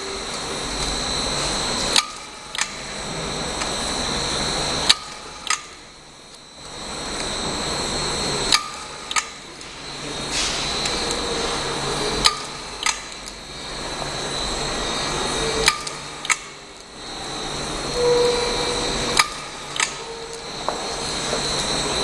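A small benchtop stick-label machine running: a steady motor whine with a high tone, cut by pairs of sharp clicks about every three seconds as the machine cycles.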